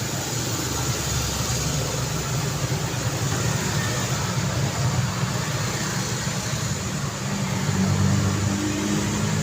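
Street traffic: car and motorcycle engines running and passing, a steady hum of road noise, with one engine growing a little louder near the end.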